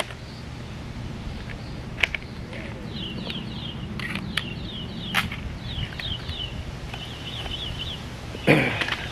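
Packaging being handled and opened by hand, with several sharp clicks and a louder rustle near the end. Behind it a bird sings quick runs of short, high chirps.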